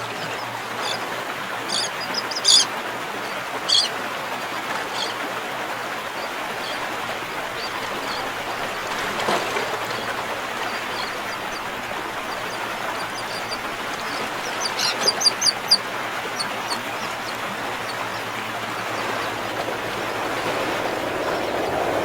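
Short, high bird calls in small clusters, a few near the start and a quick run of them in the middle, over a steady rushing background noise.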